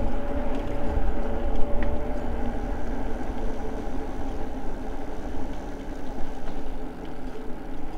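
Eahora Juliet e-bike riding along a paved trail: wind rushing over the microphone and the tyres rolling, with a steady hum that fades after about three seconds.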